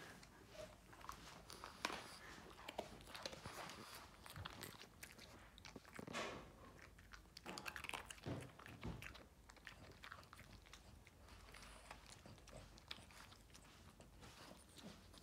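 Boston terrier gnawing and chewing a treat held between its paws: faint, irregular crunches and wet clicks of teeth on the chew.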